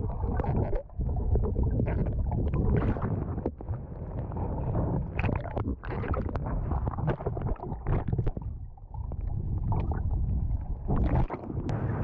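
Muffled rumbling and gurgling of water around a submerged camera, with scattered sharp crackles and knocks.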